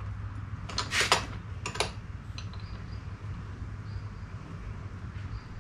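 Steel spanners clinking against each other and a metal fitting as a fitting in the engine bay is worked: a quick cluster of clinks about a second in, another sharp clink just before two seconds, then a couple of light ticks, over a low steady hum.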